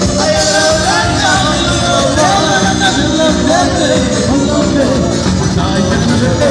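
Male vocalist singing into a microphone over an amplified live band, loud and continuous, with the melody line bending up and down.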